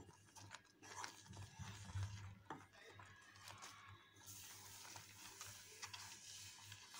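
Faint scraping and light clicks of a wooden spatula stirring thick oats kesari in a pan, over a low steady hum.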